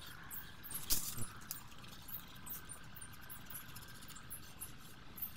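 Pencil scratching on redwood in short, quick strokes as detail lines are drawn, with a sharp knock about a second in.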